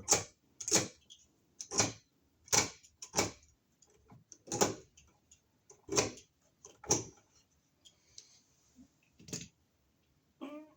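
Knife blade scraping corrosion off a bare ground wire in short strokes, about nine in all at roughly one a second, with a pause near the end.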